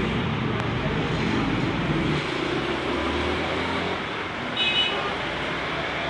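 Steady background traffic noise, with a short high-pitched tone a little past the middle.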